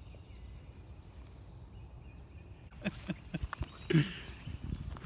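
Quiet outdoor ambience with faint high chirps, then from about halfway footsteps on leaf-strewn pavement: irregular soft thuds and scuffs, one louder scuff about a second before the end.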